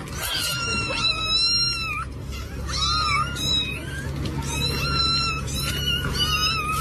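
Kittens mewing over and over, a quick string of short high-pitched cries, pausing briefly twice.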